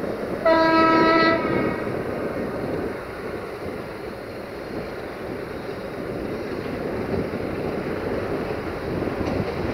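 Horn of an LDE2100 (060-DA) diesel-electric locomotive sounding a single blast about half a second in, lasting about a second. After it comes the steady running noise of the approaching locomotive and its freight train.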